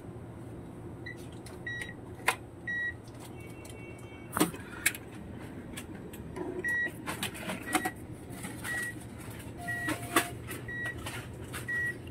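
Short, high electronic beeps repeating about once a second, over a steady low hum, with scattered clicks and knocks.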